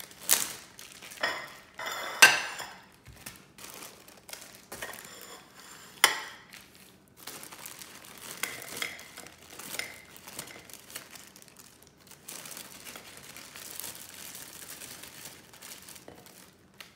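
Plastic zip-top bag crinkling and rustling as it is opened and handled, with a few sharp clicks and knocks on a ceramic plate in the first six seconds, the loudest about two seconds in; softer rustling after that.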